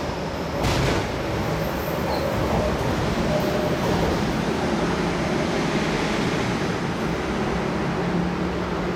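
MTR Kwun Tong Line M-Train running out of the station, with a couple of sharp clacks about a second in, then a steady train noise.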